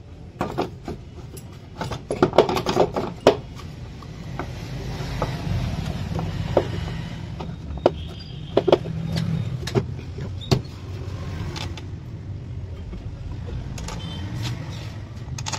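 Sharp metal clinks and knocks of a socket wrench on the bolts of a TVS Wego scooter's transmission cover as the cover is bolted on. A loud cluster comes about two to three seconds in, then scattered clicks, over a steady low hum.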